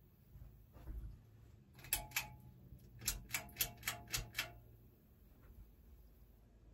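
Sharp plastic clicks as a hand handles the baseball light fitting on a spinning Hunter ceiling fan: two clicks about two seconds in, then a quick run of six. A dull knock comes just before, and the fan motor hums low underneath.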